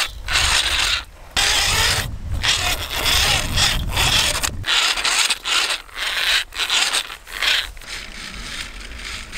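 Hand-held whisk beating butter and sugar together in a steel bowl: gritty scraping strokes of about a second each, broken by short pauses, as the sugar grinds through the butter during creaming.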